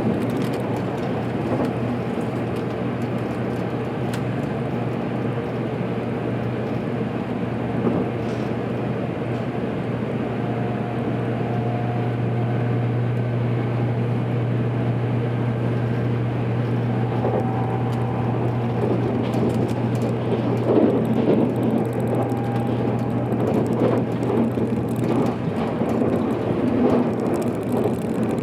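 Running noise of a JR Kyushu 783 series electric train at speed, heard from inside the front car: a steady low hum under continuous wheel-on-rail rumble, with faint short tones that come and go.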